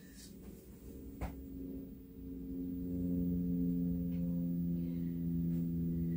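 A steady low hum of several held tones, growing louder a couple of seconds in, with a single light tap about a second in.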